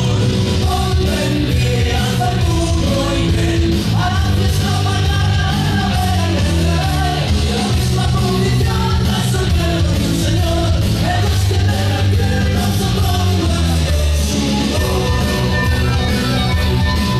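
Loud dance music with singing and heavy bass, played over a DJ's PA loudspeakers.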